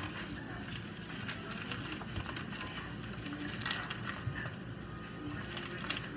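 Clear plastic bag of buns crinkling and rustling as it is handled, with scattered small crackles and clicks.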